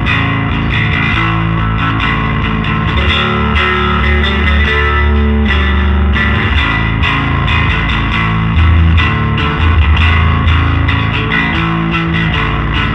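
Four-string Jazz-style electric bass played through a Dusky D₂O tube amplifier: a line of sustained low notes changing every second or so, with some overdrive on the tone.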